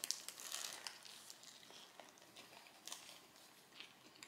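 Two people biting into soft burgers and chewing, faint wet mouth sounds with small scattered clicks; the bite is loudest at the start.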